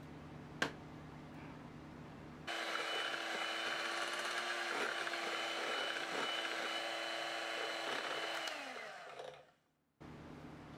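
Electric hand mixer running in a bowl of batter with a steady whine, starting abruptly about two and a half seconds in, then switched off and spinning down to a stop near the end. Before it, a faint low hum and a single click.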